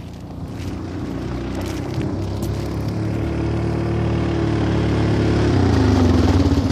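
Four-wheeler (ATV) engine running at idle, growing steadily louder; its pitch dips slightly about five and a half seconds in.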